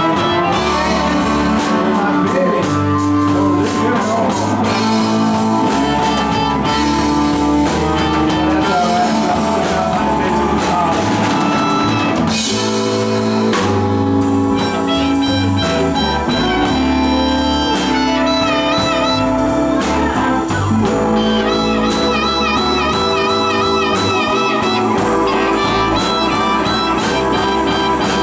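Live blues band playing an instrumental passage: electric guitar lead with wavering, bent held notes over drums and keyboard.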